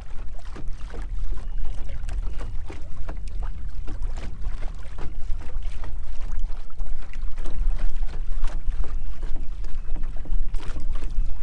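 Wind buffeting the microphone with a heavy low rumble, while choppy waves slap and lap irregularly against the hull of a small plastic boat.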